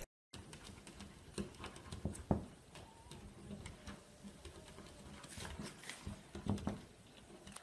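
Red fox cubs pawing and scratching at a glass door: irregular soft taps and scrapes on the glass, the sharpest about two seconds in and another cluster near the end.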